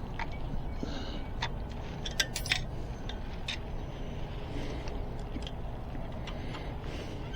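Light metallic clicks and taps of a bicycle spoke being worked into the wheel's hub and rim, with two sharper clicks about two seconds in, over a steady low background hum.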